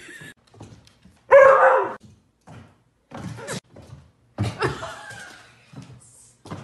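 A dog barking in short, separate barks, the loudest about a second and a half in and another about four and a half seconds in, with small knocks between.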